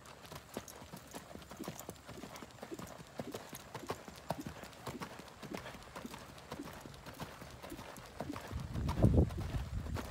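Hoofbeats of a quarter pony trotting on soft dirt under a rider: a steady run of muffled clip-clop strikes. About nine seconds in, a brief louder low rumble rises over them.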